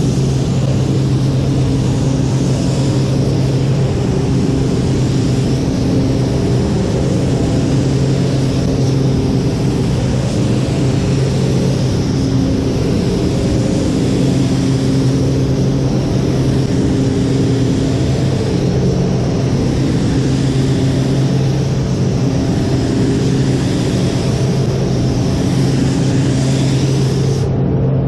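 Steady drone of a paint booth's ventilation fans with a low hum, and over it the even hiss of a gravity-feed spray gun spraying paint.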